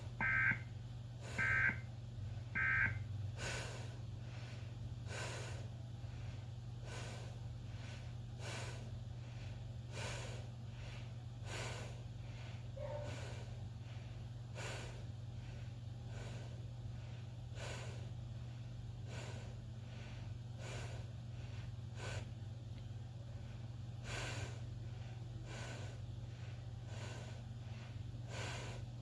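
Emergency Alert System end-of-message data tones: three short bursts of digital warbling about a second apart. After them comes a steady low hum with faint ticks about once a second.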